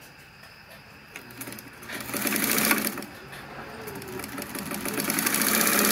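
Sears Kenmore 1301 sewing machine running off its foot pedal in rapid needle strokes. It speeds up about two seconds in, eases off briefly, then builds up again toward the end. This is a first test run that shows the machine still works.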